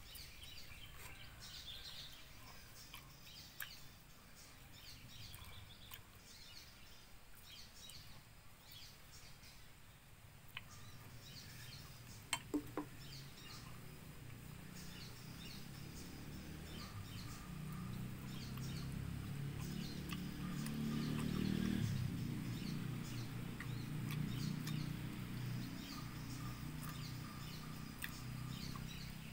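Outdoor ambience with small birds chirping, a few sharp clicks about twelve seconds in, and a low droning rumble that swells through the second half, loudest a little past two-thirds of the way, then eases.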